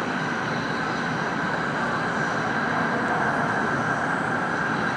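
Shinkansen bullet train running at speed, heard inside the passenger cabin: a steady rumble and rush of noise, with faint steady high tones above it.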